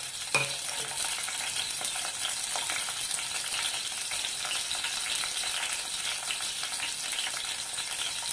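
Dried red chillies frying in hot oil in an aluminium pan: a steady sizzle full of small crackles. A single knock about half a second in.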